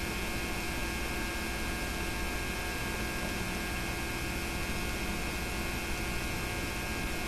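Steady electrical mains hum with tape hiss, unchanging throughout: the noise floor of a home-made narration soundtrack over silent film.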